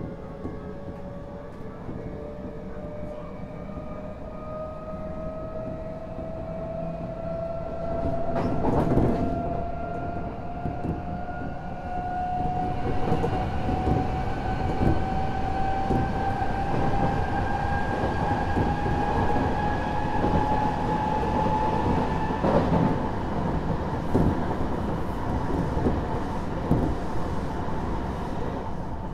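Odakyu Series 1000 electric train with SiC-MOSFET VVVF traction control running, its traction-motor whine climbing slowly in pitch and growing louder as the train gains speed, then levelling off about two-thirds of the way through. Under it run a steady wheel-and-rail rumble and occasional clicks of wheels over rail joints.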